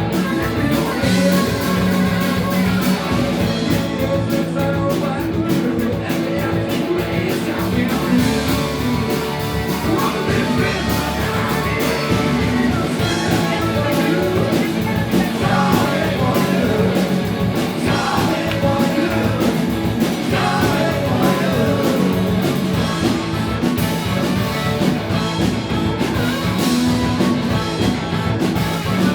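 Rock band playing live, with a singer over guitar, bass and drums.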